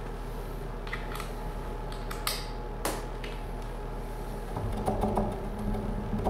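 A few light clicks and knocks from a cordless drill and its pieced-together bit extension being handled at a wall stud, over a steady low hum. The knocking grows busier and louder near the end.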